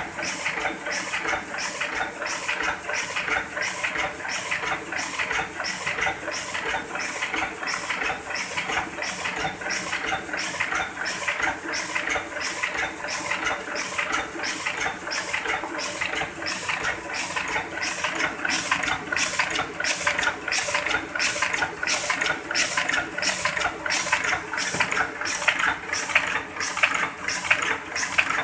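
Heidelberg GTO two-colour sheetfed offset press running in production, its grippers and feeder clattering in an even rhythm of about two beats a second as it prints and delivers sheets of yellow paper.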